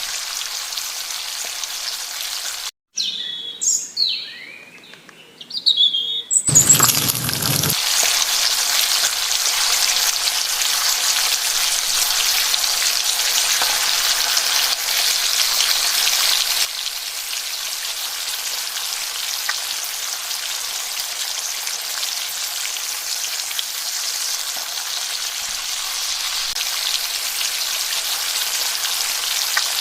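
Fish frying in hot oil in a miniature pan: a steady, high sizzle that gets louder about eight seconds in and eases down about halfway through. Birds chirp briefly a few seconds in, just before a short hit.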